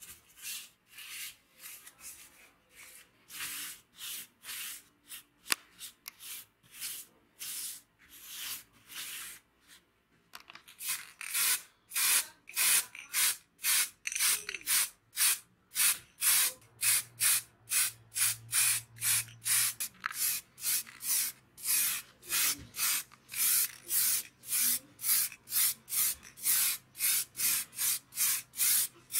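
Bristle paintbrush stroking liquid coating onto a metal part, a soft swish about twice a second. About ten seconds in this gives way to an aerosol spray-paint can hissing in quick, short, louder bursts, two or three a second.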